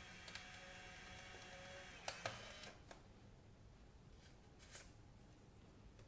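Fujifilm Instax Mini 8's film-ejection motor whirring steadily as it drives the print out. It stops about two seconds in, followed by two sharp clicks, then a few faint handling ticks.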